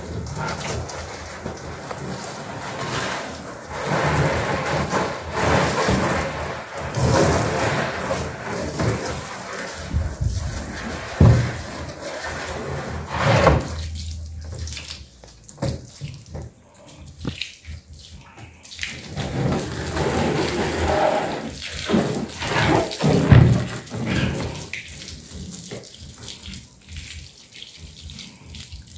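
Water from a garden hose splashing onto and running off a black plastic doghouse as it is rinsed, the splashing swelling and fading as the stream moves over the plastic and drops away for moments in the second half.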